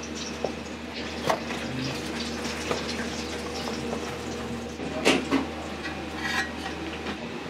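Kitchen clatter: a handful of separate knocks and clinks of utensils or dishes, the loudest two coming close together about five seconds in, over the steady hum of kitchen equipment.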